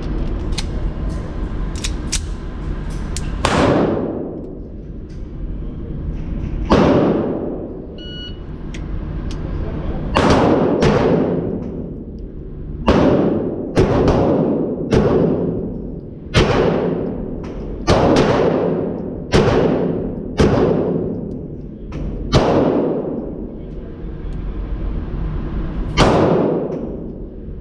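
Pistol shots from an Atlas Gunworks race pistol in an indoor range, a dozen or so fired at irregular intervals, some in quick pairs, each ringing off the range walls. A few light clicks of gun handling come before the first shot.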